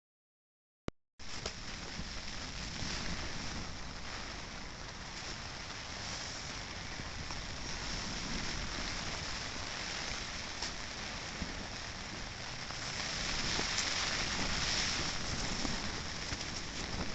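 Steady rush of heavy rain and gusting wind, starting abruptly about a second in after a short click.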